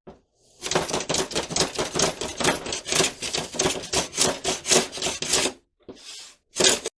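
Sandpaper rubbed by hand in quick back-and-forth strokes, several a second, for about five seconds, then two short bursts of sanding near the end.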